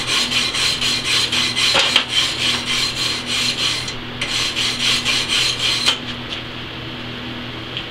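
Steel-bristle hand wire brush scrubbing slag off a fresh flux-cored weld bead on steel plate, in quick back-and-forth strokes about four a second. The strokes come in two spells with a short break about four seconds in, and stop about six seconds in.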